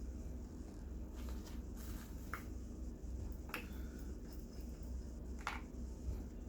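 Mouth sounds of someone eating a roast chicken drumstick: about four short, wet smacks and clicks, spaced a second or more apart, over a low steady hum.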